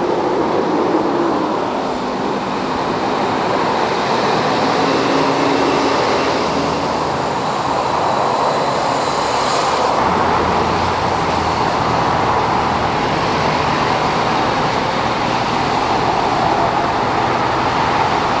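Steady highway traffic: cars and trucks passing on a wet interstate, with a deeper rumble after about ten seconds.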